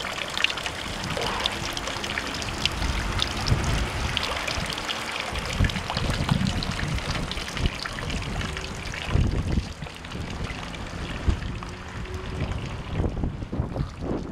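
Water trickling steadily from a wooden spout, with a few bursts of low rumble. The trickle drops away near the end.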